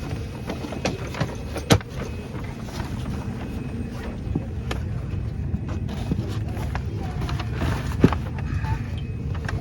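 Steady low rumble of an airliner cabin during boarding, with scattered clicks and knocks, one louder knock a couple of seconds in and another near the end.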